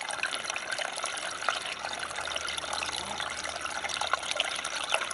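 A small winter stream trickling between rocks, a steady rush of water with many quick little splashes and drips.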